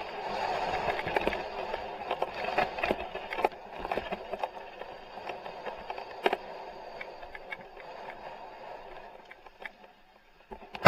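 Mountain bike rolling down a dirt track, heard from a helmet-mounted camera: a steady rush of wind and tyre noise with scattered sharp knocks and rattles over the bumps. The rush fades away near the end.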